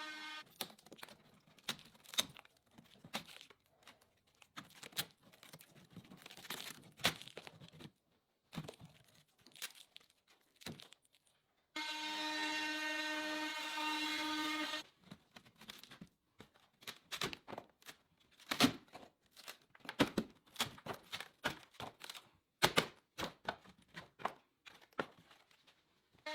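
Irregular sharp clicks, knocks and tearing sounds of hand work on old wooden furniture. About twelve seconds in, a small power tool whines steadily for about three seconds.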